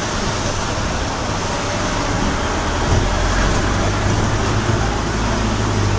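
Cabin noise inside a moving hybrid double-decker bus: steady road and drivetrain noise, with a low hum that grows stronger about halfway through.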